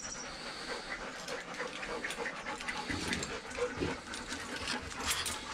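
Dogs panting close by, with scattered small clicks and scuffs.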